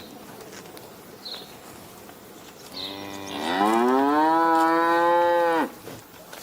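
A cow mooing once: a soft start a little before halfway, then a long, loud moo that rises in pitch and holds steady for about two seconds before cutting off.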